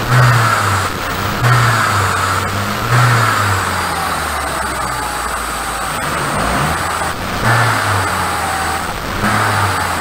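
Toyota Corona engine running at idle, revved in five short blips at the throttle body, each rising briefly and dropping back to idle.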